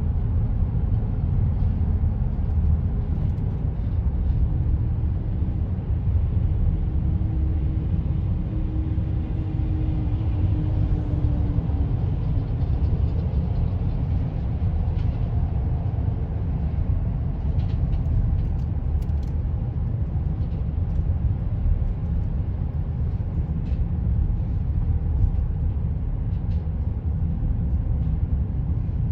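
Road and engine noise heard inside a moving car: a steady low rumble, with a faint tone that drifts slightly lower for several seconds early on.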